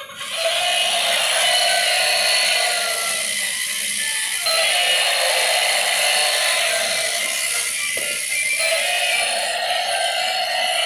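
Battery-operated toy animals playing a tinny electronic tune over the whir and clicking of plastic gears; the tune changes twice.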